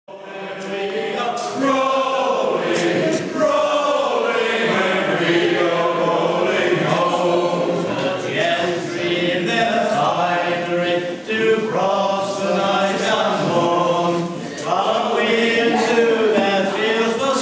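A mixed group of men's and women's voices singing a folk song together unaccompanied, as a cappella chorus singing. The singing starts right at the beginning and carries on at a steady level.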